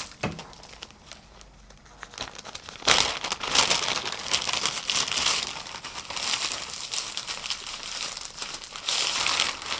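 Crinkling and rustling that starts about three seconds in and goes on irregularly, like something crackly being handled or shifted, after a few faint clicks.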